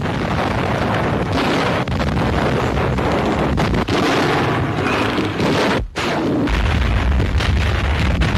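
Battle noise of gunfire and shell explosions, dense and continuous. It cuts out briefly just before six seconds, then comes back as a heavier, deep rumble of explosions.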